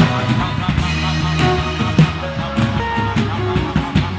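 Worship music played under prayer: sustained chords with drum strokes.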